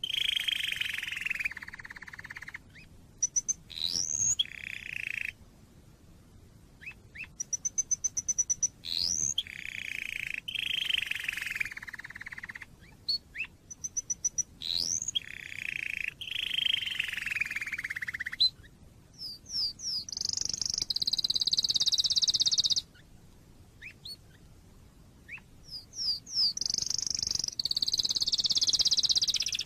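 Domestic canary singing in phrases of rapid rolling trills and rising whistled notes, with short pauses between phrases. A run of quick high repeated notes comes about eight seconds in, and higher, buzzier trills come past the middle and again near the end.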